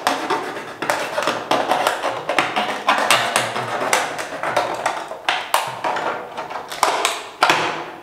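Thin plastic water bottle crackling and crinkling with many sharp clicks as it is gripped and cut with a box cutter.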